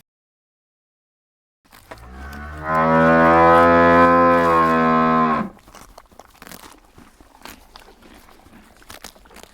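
A cow mooing: one long, low call of about three and a half seconds that swells louder partway in and then stops abruptly. Faint clicks and rustling follow.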